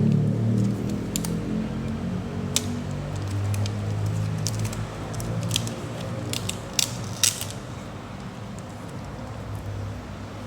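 Parcel packaging being handled and opened: a scatter of sharp clicks and crackles, about half a dozen in the middle of the stretch, over a low steady hum that fades away.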